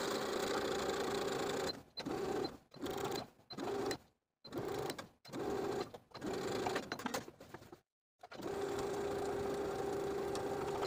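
Domestic electric sewing machine top-stitching a seam through heavyweight linen-blend fabric: it runs steadily for about two seconds, stops and starts in a series of short runs, then runs steadily again from about eight seconds in.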